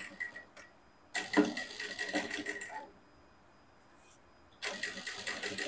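Industrial single-needle sewing machine stitching a seam in two short runs of a second or two each, separated by a pause, each run with a fast, even stitching rhythm.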